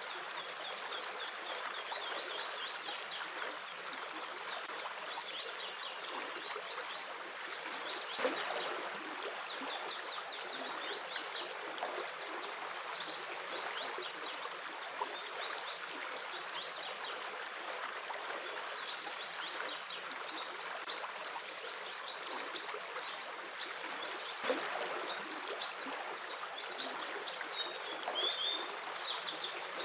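A stream running steadily with small songbirds chirping throughout, in short high calls. Twice, about a quarter of the way in and again later on, the water gives a brief louder gurgle.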